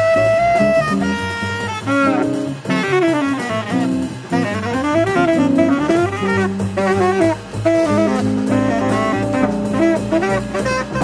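Jazz saxophone solo over drum kit and double bass: fast runs of notes climbing and falling, then longer held notes.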